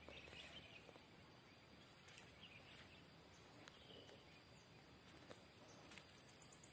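Near silence: faint field ambience with a few scattered faint bird chirps, and a quick run of high chirps near the end.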